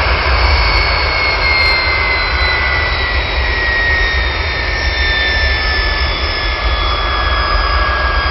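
Turbojet engine running down: a steady rush over a low rumble, with a high whine that slowly falls in pitch.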